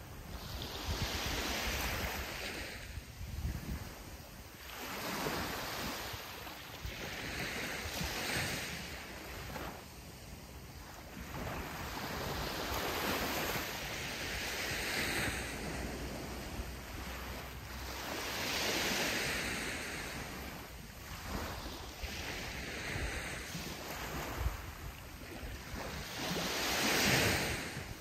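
Sea waves breaking and washing up a sandy beach. Each surge of surf swells and fades every few seconds, about seven times, and the loudest comes near the end.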